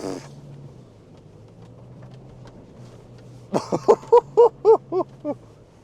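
Toyota Land Cruiser's engine running with a steady low drone heard inside the cabin. About three and a half seconds in, a man laughs in a quick run of about eight short bursts.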